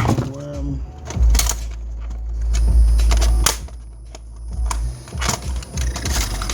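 Scattered clicks and knocks of hands working on a Magnavox VHS player, with a low handling rumble for a couple of seconds.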